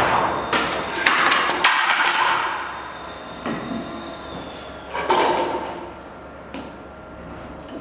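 Clattering and knocking of chipboard panels and metal drawer runners being handled and set down on a concrete floor. A dense run of knocks fills the first two seconds, and a second, shorter burst comes about five seconds in.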